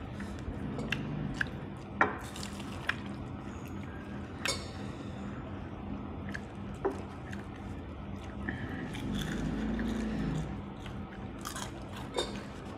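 Mealtime sounds: scattered clicks and taps of dishes and chewing, the sharpest about two seconds in and again near four and a half seconds, over a steady low hum.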